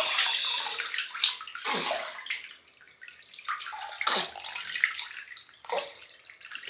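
Bath water scooped and poured from a plastic baby rinse cup over a newborn's head, splashing and trickling back into the tub. A long pour at the start, then several shorter splashes.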